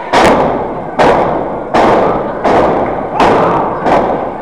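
Pro wrestlers' strikes landing on bare skin in the ring: six sharp smacks about three-quarters of a second apart, each echoing in a gym hall.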